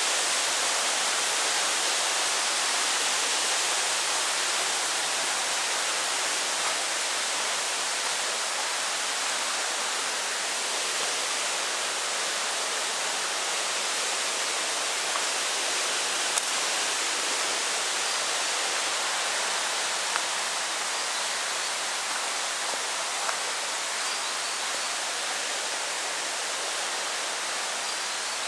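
Steady rushing noise that eases slightly over time, with a few faint ticks about halfway through and later.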